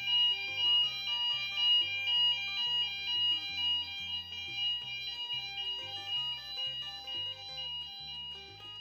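Background music over the end card: a bass line stepping between notes about every quarter second under steady, high held tones, fading out gradually.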